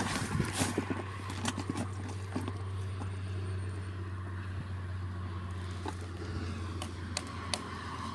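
Handling noise from fishing gear and live bait: scattered sharp clicks and light rustling from hands working a mesh net bag and hook, over a steady low hum.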